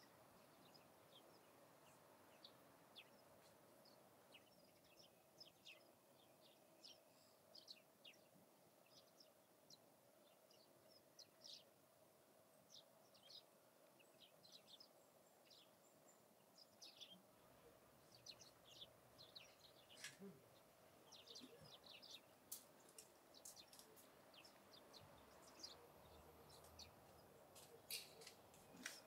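Faint, scattered short chirps of small birds, many of them through the whole stretch, over a near-silent steady background.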